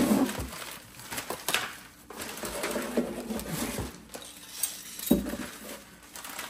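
Small objects, among them a flashlight and a battery, being picked up and knocking against a wooden kitchen drawer as it is cleared out: scattered knocks and light clatter, the sharpest right at the start and another about five seconds in, with faint handling rustle between.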